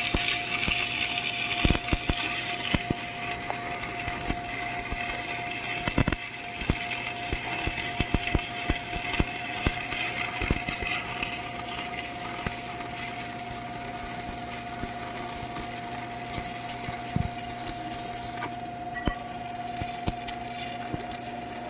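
Electric arc welding: a steady frying hiss with irregular sharp pops and crackles, and a faint steady tone underneath.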